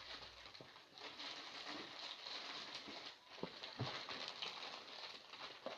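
Crisp plastic squishy packaging crinkling as it is handled, with a couple of small knocks a little past the middle.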